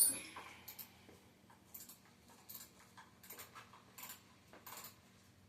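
A small hand wrench clicking faintly on fairing bolts as they are tightened, a short click or cluster of clicks about every two-thirds of a second.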